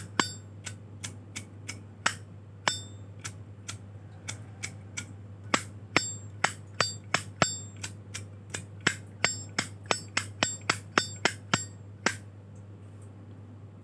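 A Zippo lighter's hinged metal lid being flicked open and snapped shut over and over, each stroke a sharp click with a bright bell-like ring. The clicks come about two a second, speed up for a stretch, and stop about twelve seconds in.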